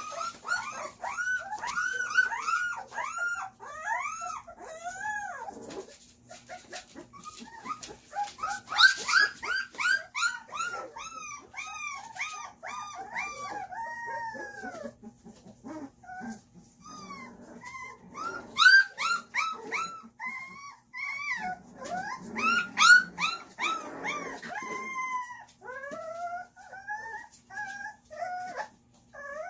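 A litter of young puppies whining and yelping: a rapid string of short, high cries that rise and fall, coming in several bouts with brief lulls between them.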